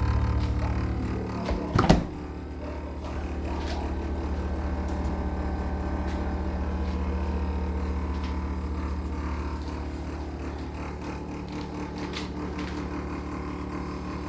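Steady low electrical hum from a GE appliance, with a short loud knock about two seconds in and a few faint clicks after; the hum is the noise the owner is reporting as a problem.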